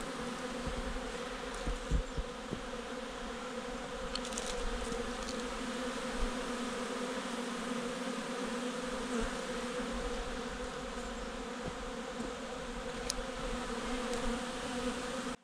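Steady buzzing of a great many honeybees flying around the hive entrances, most of the colonies out at once on a spring cleansing flight. A couple of low thumps about two seconds in.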